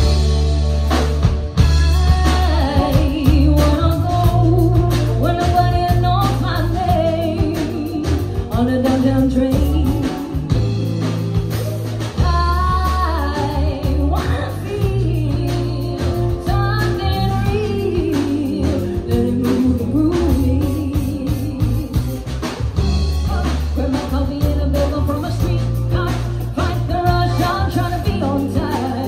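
Live band playing: a woman singing lead over electric guitar, bass guitar, drums and keyboard.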